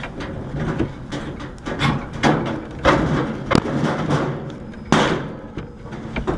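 Irregular knocks and scraping as parts are handled and fitted into an air conditioner unit, about half a dozen sharp knocks with rattling between them.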